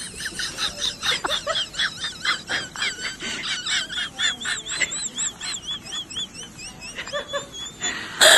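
Small bird chirping: a rapid run of short, high chirps, about three or four a second, each rising and falling in pitch. A louder, noisy burst comes right at the end.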